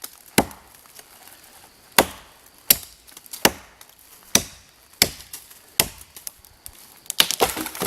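Wood being chopped: a series of sharp chopping blows into wood, about one every second or less, with a quicker flurry of knocks near the end.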